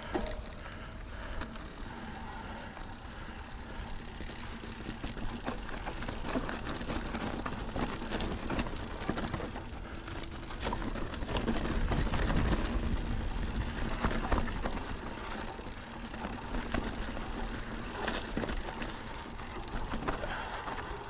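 Santa Cruz Bronson full-suspension mountain bike ridden along a dirt trail: tyres running over dirt, and chain and frame rattling and clicking over bumps, with wind rumble on the microphone that is loudest around the middle.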